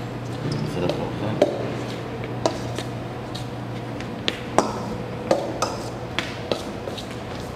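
Hand mixing flour and melted butter in a stainless steel bowl, with irregular light knocks and clinks of the metal bowl against the counter and fingers, over a steady low hum.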